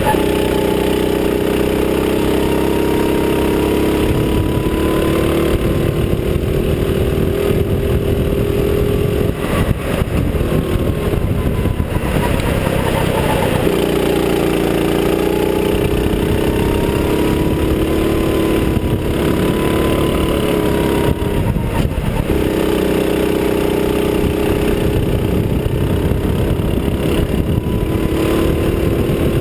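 Go-kart engine running at racing speed, heard from on board over a steady noise of the ride. Its note drops out twice for a few seconds and then picks back up.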